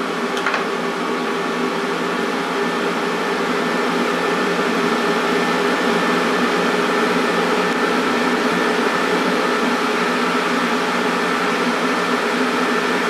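Cooling fans of a CoinTerra TerraMiner IV Bitcoin ASIC miner running under mining load: a loud, steady rush of air with several steady hum tones in it. A brief click about half a second in.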